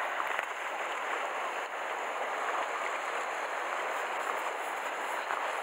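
Sea waves washing steadily against shoreline rocks: a constant rushing of water without distinct breaks.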